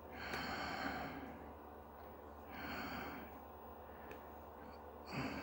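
A man breathing out hard three times close to the microphone, short breathy puffs about a second long and roughly two and a half seconds apart, the last coming near the end.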